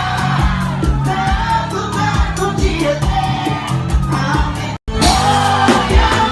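Live band music with a lead singer over a steady drum beat. The sound cuts out completely for a split second near the end.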